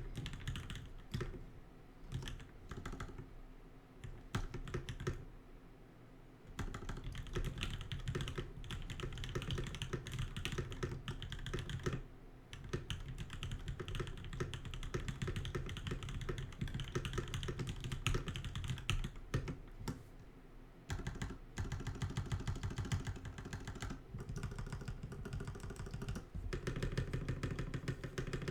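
Continuous fast typing on a Godspeed75 mechanical keyboard with a brass plate, lubed and filmed Durock POM linear switches and PBT keycaps, with a few short pauses. The stabilized keys make no rattle.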